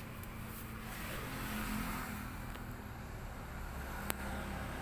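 Steady low mechanical hum over a faint background hiss, with one sharp click about four seconds in.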